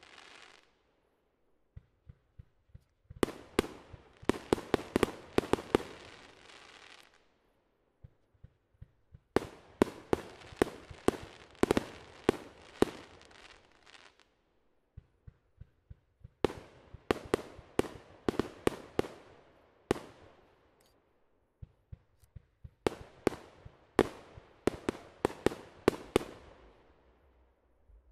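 Aerial fireworks going off in four waves. In each, dull low launch thumps are followed about a second later by a rapid cluster of sharp cracks and pops as the bursts break, fading out over three to four seconds.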